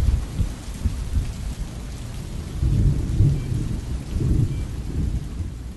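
Rain falling with a steady hiss, and low rumbles of thunder that swell about three seconds in and again a little after four seconds.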